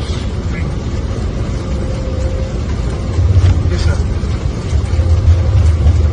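Steady low rumble of aircraft noise heard inside the cockpit, getting louder about three seconds in.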